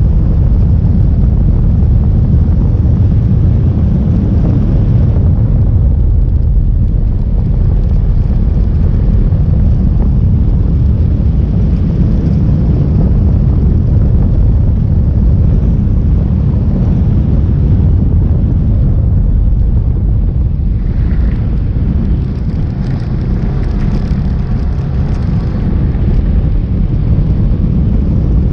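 Steady low rumble of road and wind noise from a moving vehicle, with faint higher tones coming through about two-thirds of the way in.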